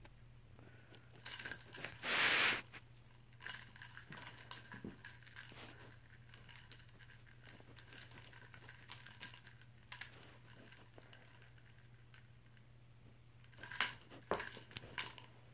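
Plastic drinking straws on a wire cat-dancer toy crinkling and rattling in irregular bursts as a cat bats and bites at them. The loudest burst comes about two seconds in, and another flurry near the end, over a faint steady hum.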